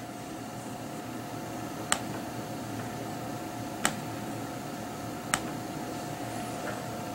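Three sharp computer mouse clicks, about one and a half to two seconds apart, over a steady hum and faint room noise.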